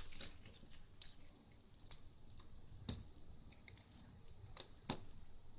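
Scattered small clicks and taps from handling the internals of an opened Fiio M6 music player: tools and fingers on its plastic frame, ribbon cables and connectors. Two sharper clicks stand out, about three and five seconds in.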